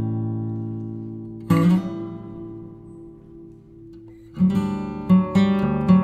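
Background music on acoustic guitar: a chord rings and fades, a new chord is struck about a second and a half in and dies away, and a run of picked notes starts about four seconds in.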